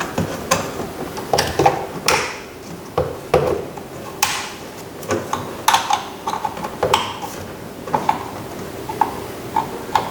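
Irregular clicks and knocks of plastic door-trim parts and a wiring connector being handled and fitted during reassembly of a car door panel.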